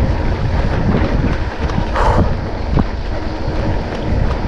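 Wind rushing over the microphone as a hardtail mountain bike descends fast on a dirt trail, with the bike rattling and a couple of brief knocks from the rough ground.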